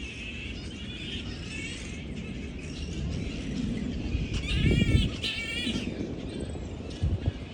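A flying-fox colony chattering and squabbling, with one louder wavering screech about halfway through. A low rumble sits underneath and swells at the same time.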